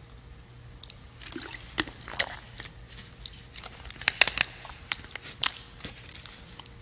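Irregular small clicks and crackles, more than a dozen scattered over a few seconds, with a faint steady hum underneath.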